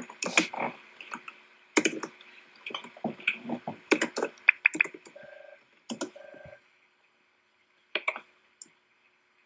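Computer keyboard typing: quick runs of key clicks through the first five seconds. Two short electronic beeps come about five and six seconds in, and a couple of lone clicks follow near the end.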